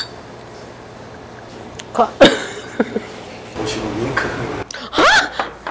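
A light click of a glass as soju is poured into a shot glass, then short vocal sounds and a low murmur of voices over the room's steady hum.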